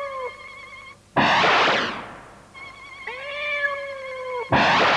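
Cartoon cat meowing, with long drawn-out meows. Twice a sudden loud rush of noise about a second long breaks in: about a second in and near the end. A faint wavering electronic hum runs underneath.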